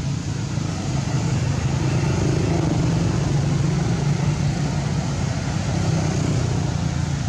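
Low engine rumble of a motor vehicle running nearby, swelling after about a second and easing off near the end.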